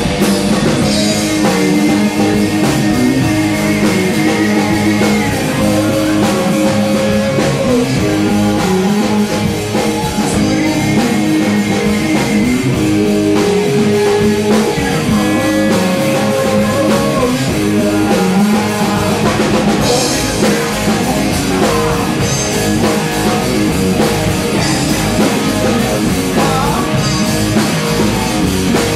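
Live rock band playing: drum kit and electric guitar, with a melodic line of held notes that bend in pitch over a steady beat.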